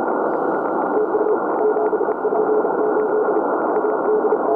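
40-metre band noise hissing through an Icom IC-7600 transceiver's narrow CW filter. About a second in, a Morse code (CW) tone starts, a single steady note keyed in dots and dashes.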